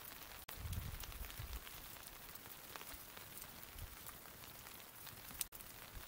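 Smoldering wood bonfire crackling softly: scattered small ticks and pops over a steady hiss from the embers. A brief low rumble comes about a second in.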